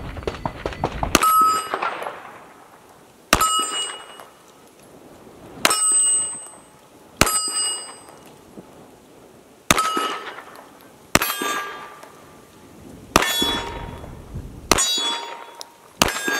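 Walther Q5 Match 9mm pistol fired about nine times at a slow, steady pace, one shot every one and a half to two and a half seconds. Each shot is followed by the clang and ringing of a steel target plate being hit.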